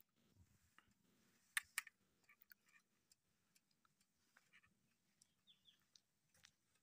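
Near silence with scattered faint clicks, the loudest two close together a little under two seconds in.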